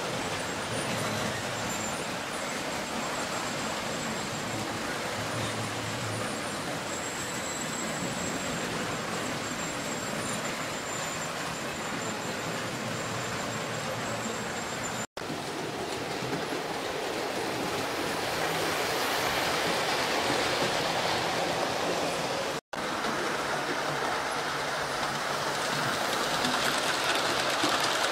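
00 gauge model trains running on the layout: a steady whirr and rumble of motors and wheels clicking over the rail joints, growing louder as a train nears and passes close in the last seconds. The sound cuts out for an instant twice, about halfway through and again a few seconds later.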